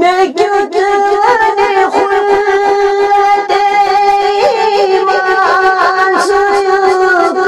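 A man singing a Kashmiri naat (devotional salaam), holding one long note with small wavering ornaments.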